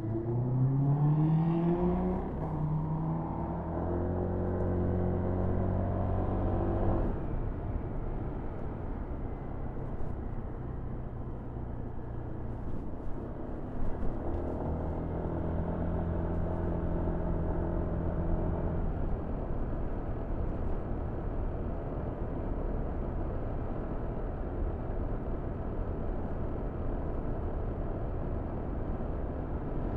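Motorcycle engine heard from the bike while riding. It revs up through the first two seconds, holds a steady note until the throttle closes about seven seconds in, then pulls steadily again for a few seconds midway before easing off. A steady rushing noise runs underneath, with a couple of brief knocks about fourteen seconds in.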